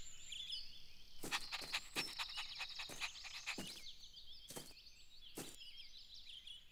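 Small birds chirping steadily in an outdoor ambience, with a run of about ten short, sharp sounds spread over the first five seconds.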